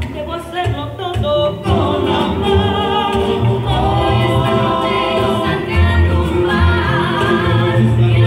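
A rondalla playing live: several voices singing together over acoustic guitars, with a pulsing low bass line.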